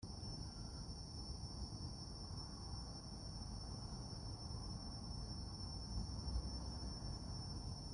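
Insects trilling steadily at a high pitch, over a low, even rumble.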